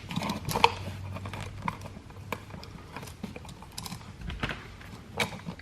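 Scattered light clicks and taps of hand tools and wires being handled at an electrical wall outlet's screw terminals.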